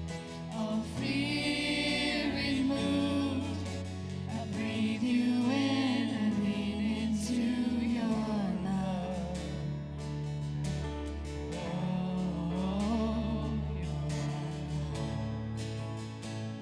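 Gospel-style worship song: voices singing a sustained melody with vibrato over held low instrumental notes.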